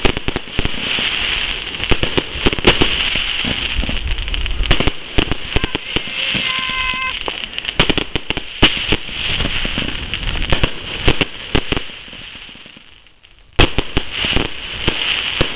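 Fireworks display: rapid bangs of bursting shells over dense crackling. A short steady tone sounds about halfway through, and the barrage fades to a brief lull near the end before a sudden loud bang sets it off again.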